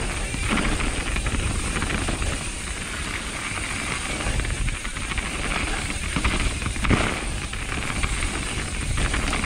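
Mountain bike riding down a dirt trail, with wind rumbling on the microphone and steady tyre hiss. A sharper knock from the bike comes about seven seconds in.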